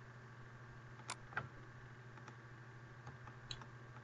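A few faint clicks from operating a computer's mouse and keyboard, the two loudest a moment apart just past a second in, then scattered lighter ticks, over a steady low hum.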